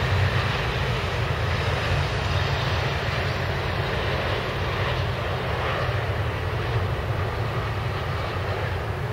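Jet airliner engines with a steady rumble and roar that eases slightly toward the end.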